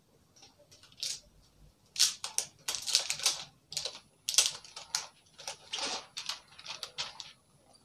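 Crinkling and rustling of a plastic packaging sleeve as a new phone is pulled out of it, in irregular crackly bursts.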